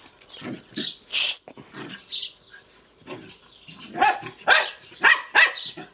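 Puppies barking during rough play: a few short high barks in the first two seconds, then a quicker run of about four barks about half a second apart near the end.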